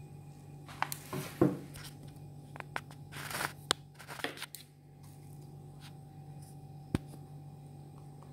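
Knife prying and scraping fresh coconut meat away from the inside of the shell: two spells of crunching, tearing scrapes and a few sharp clicks of the blade against the shell, over a steady low hum.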